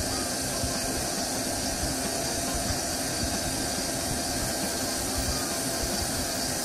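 Doosan CNC lathe running, a steady machine noise with a strong high hiss and a faint hum underneath.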